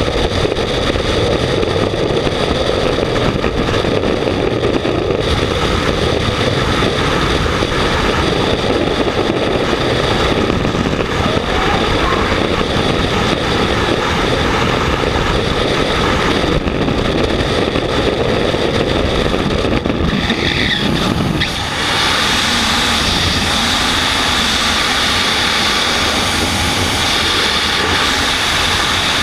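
Freefall wind rushing over a helmet camera's microphone, a loud steady roar. About 21 seconds in its tone shifts, the low rumble thinning and a higher hiss taking over.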